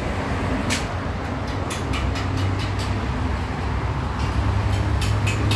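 Arc welding on a wrought-iron gate frame: short bursts of the arc as tack welds are struck, one about a second in, several more shortly after, and another cluster near the end, over a steady low rumble.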